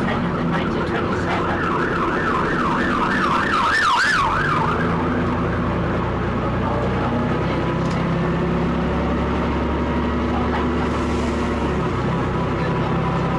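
A passing emergency-vehicle siren in a fast rising-and-falling yelp for a few seconds near the start, loudest over everything else. Under it, and after it, the Leyland L10 diesel engine of a double-decker bus runs steadily.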